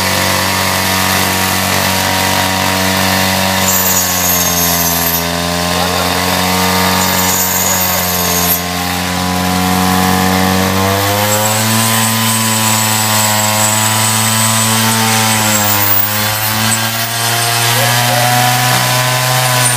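Homemade bone-chopping table saw running, its circular blade cutting through meat and bone. The motor gives a steady hum whose pitch sags several times as the blade bites into bone, then picks up again.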